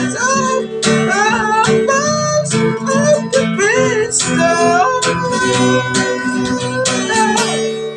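Song with strummed acoustic guitar under a bending melodic vocal line. Near the end it settles onto a last held chord that begins to ring out.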